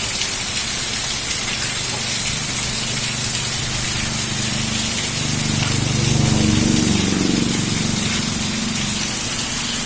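Heavy rain falling steadily. A low rumble swells up a little past the middle, becomes the loudest part, and fades out again.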